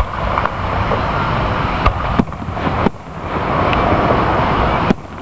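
Aerial fireworks going off, heard as a few sharp bangs about two, three and five seconds in, over a steady rushing background noise.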